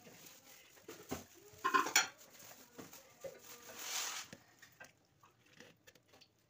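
Plastic manual citrus juicer knocking and scraping as orange halves are pressed and twisted on its reamer: a few knocks about one and two seconds in, and a longer scraping rub around four seconds.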